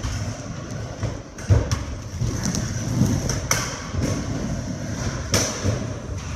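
Skateboard wheels rolling with a continuous rumble across a skatepark floor, with three sharp knocks and thuds of boards or scooters striking ramps, echoing in a large hall.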